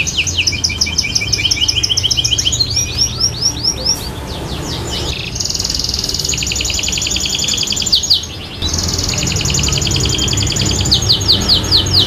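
AF Panda canary singing a long, continuous song of rapid trills, breaking off briefly about eight seconds in. It is a bird in full song ('gacor').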